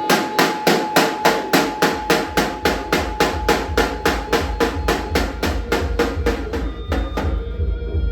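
Rapid, even percussive strikes, about four a second, over a steady pitched ringing tone; they stop about seven seconds in.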